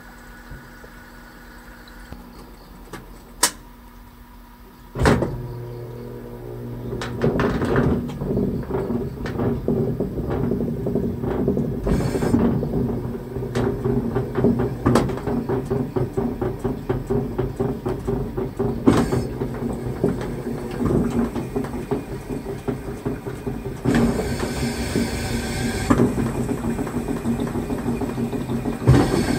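Washing machine starting its wash cycle: a single click a few seconds in, then about five seconds in the motor starts with a hum, and from there the drum churns clothes and water in uneven, surging strokes.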